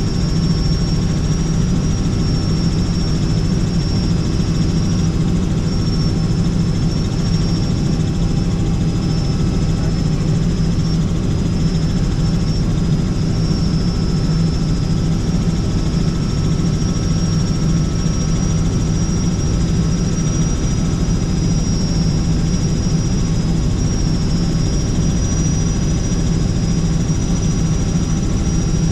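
Helicopter in flight heard from inside the cabin: a steady, loud drone of rotor and engine with a thin high whine over it.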